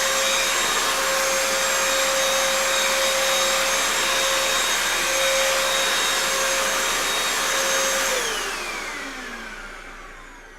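Vacuum cleaner running with a steady airy hiss and a high whine, then shutting off about eight seconds in, the whine falling in pitch and fading as the motor spins down.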